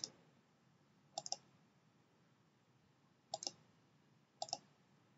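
Computer mouse button clicks, faint, four times at uneven intervals. Each is a quick pair of sharp clicks, with faint hiss between them.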